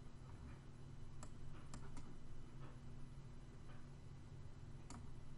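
A handful of faint, scattered computer mouse clicks over a faint steady low hum.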